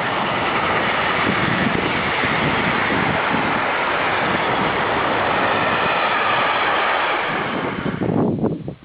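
Train passing at speed: a steady, loud rushing rumble of wheels and cars on the track that falls away suddenly near the end, giving way to gusts of wind on the microphone.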